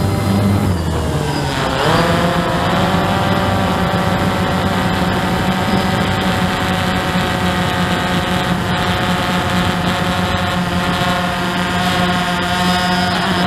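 Hubsan quadcopter's motors and propellers whining, heard through its own onboard camera. The pitch dips sharply about a second and a half in, climbs back, then holds steady.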